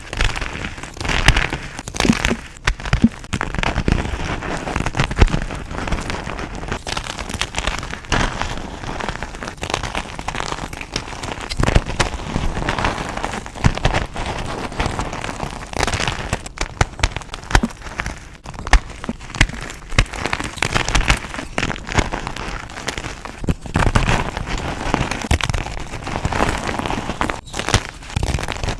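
Reformed gym chalk being crushed and crumbled: a continuous run of dry crunching with many irregular sharp cracks.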